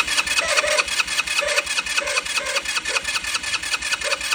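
A scooter's electric starter motor running with a rapid, even rattle. It is the noise of a damaged, worn-out starter, not of the internal clutch.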